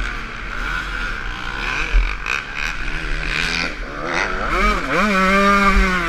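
Motocross dirt bike engine heard from on the bike, revving up and down through the gears as the rider works the throttle around the track, with a sustained high rev about five seconds in that drops off near the end. Low thumps sound intermittently under the engine.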